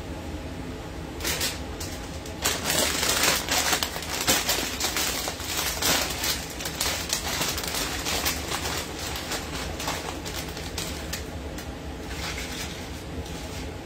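Plastic bag of tortilla chips crinkling as it is handled and opened, starting about a second in and busiest over the next several seconds, then chips rattling out of the bag onto a plate near the end. A steady low hum runs underneath.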